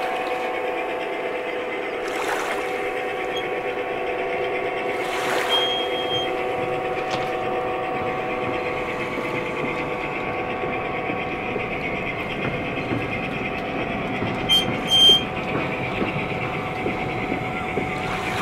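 1:29-scale model diesel freight train running past, with a steady mechanical drone from the locomotives and wheels on the track. A few sharp clicks and short high tones come through, the loudest about three-quarters of the way in.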